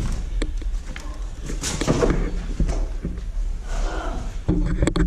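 Scattered knocks and clunks of people moving through a derelict building, over a low steady rumble, with a brief murmur of voices.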